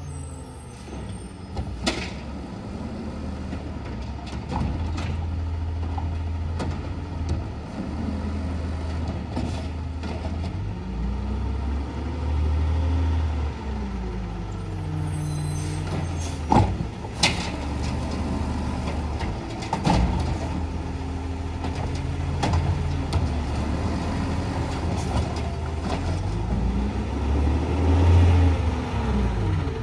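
Automated side-loader garbage truck's diesel engine revving up and down again and again as it drives the hydraulic arm that lifts and empties trash carts. Several sharp bangs, the loudest about 17 and 20 seconds in, as the carts are shaken out and set down.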